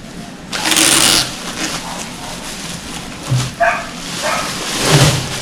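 A loud rustle about half a second in, then a small dog giving two short, high yips, with a few low thumps.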